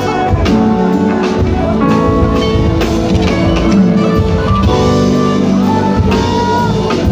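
A live band playing Ethiopian Protestant worship music (mezmur), with guitar and a drum kit keeping a steady beat, in a large hall.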